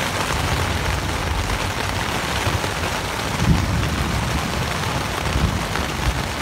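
Heavy rain drumming on a tent from inside, over a shifting low rumble of wind shaking the tent, with one brief louder moment about three and a half seconds in.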